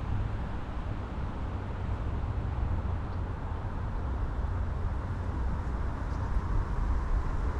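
Strong wind buffeting the microphone: a steady low rumble with gusts and a broad hiss over it.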